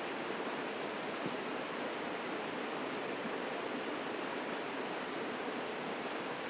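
Waterfall: water falling and splashing in a steady, even rush with no breaks.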